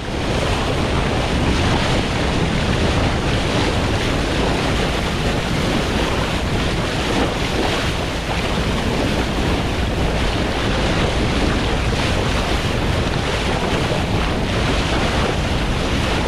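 Steady rush of water as a powerboat's bow cuts through the sea and throws up its bow wave, mixed with wind buffeting the microphone.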